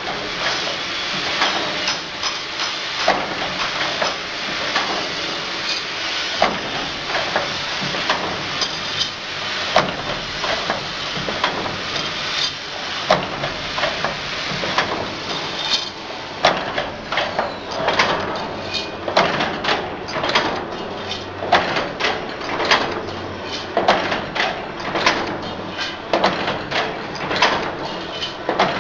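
Automatic bucket-handle wire-forming machine running: a steady mechanical noise with repeated sharp metallic clanks, spaced a second or two apart at first and coming faster, about one or two a second, in the second half.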